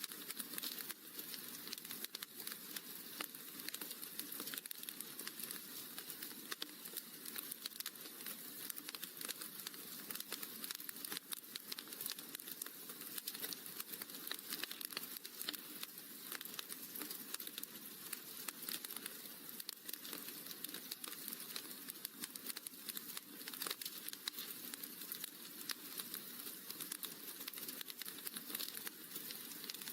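Wood fire crackling in a fireplace: a steady stream of small pops and snaps over a soft hiss.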